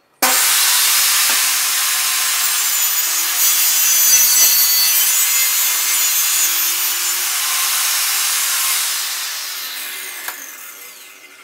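Bosch GTS 254 table saw with an 1800 W motor, switched on with a sudden start and ripping a 2-inch strip off a plywood board. The blade's noise runs steadily through the cut, then winds down gradually over the last couple of seconds as the saw spins down.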